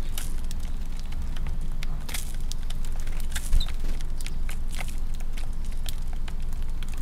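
Eurasian tree sparrows pecking grain from a feeding tray: a quick, irregular patter of small clicks and crackles over a steady low rumble. There is one short high chirp about halfway through, followed by a brief low bump.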